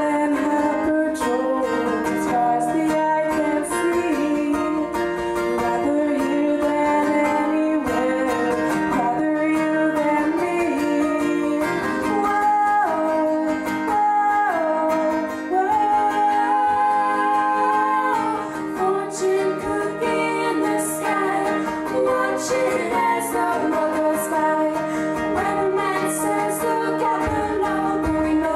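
A pop song with sung vocals over guitar, playing steadily throughout.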